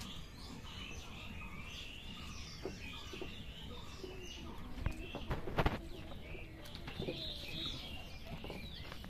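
Birds chirping over and over in the background, with a few sharp knocks about halfway through.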